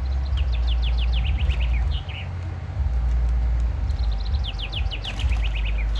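A songbird singing two quick phrases of rapid, downward-sliding chirps, each ending in a lower note, over a loud low rumble.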